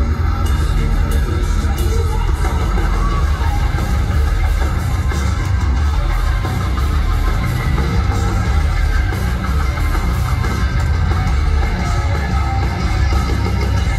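Heavy metal band playing live, heard from the audience: a loud, steady wall of distorted guitar and drums with very heavy bass.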